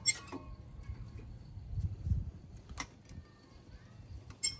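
Old front brake pads being worked out of a Subaru WRX's caliper bracket: a few sharp metallic clicks and clinks with a faint ring, spaced a second or two apart.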